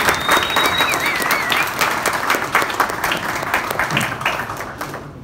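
Audience applauding, with a high whistle held for about a second near the start, then a short warbling whistle. The clapping thins out and fades near the end.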